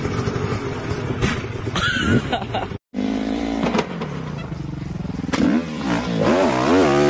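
Dirt bike engines running and revving across quick cuts between clips; near the end one engine's pitch rises and falls several times as the throttle is worked.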